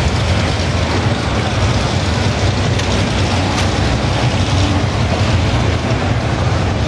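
Muscle car engines running at low speed, a steady deep rumble with no sharp revs.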